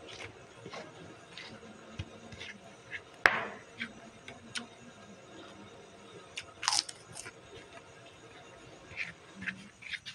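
A metal spoon scraping and clicking against a paper food wrapper as fried rice is scooped up and eaten, with chewing and the crunch of a cracker. Scattered short clicks and scrapes, the sharpest about three seconds in.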